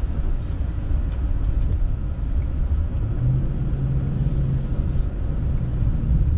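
Steady low rumble of the 2020 Nissan Titan Pro-4X's 5.6-litre V8 and tyres on a dirt track, heard from inside the cab. The engine note climbs a little about three seconds in.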